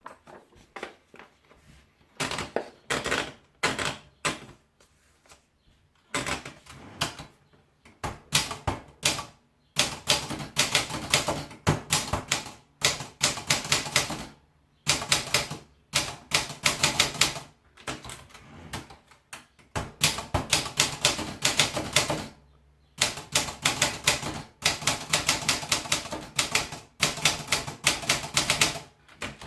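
Olympia Traveller manual portable typewriter being typed on: quick runs of sharp key strikes in bursts, separated by short pauses.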